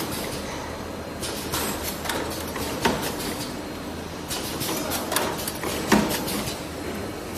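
An automatic wire ring making machine running: a steady low hum under irregular metallic clicks and rattles, with a sharper clunk twice, about three seconds apart.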